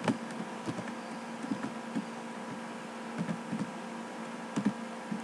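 Computer keyboard being typed on, slow irregular key clicks a few at a time, over a steady faint electrical hum.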